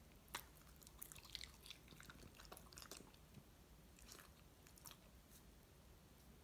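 A Boston terrier chewing a mandarin orange segment: faint, quick, wet clicks of its jaws, a cluster over the first three seconds and a few more about four to five seconds in.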